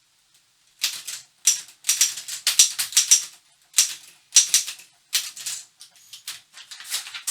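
A 1952 Continental Standard manual office typewriter being typed on: sharp typebar clacks in quick, irregular bursts, starting about a second in.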